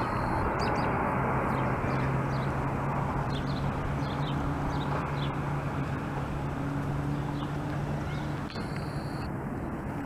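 Steady outdoor rumble of motor traffic with a low, even engine hum, and a few short, faint bird chirps scattered through.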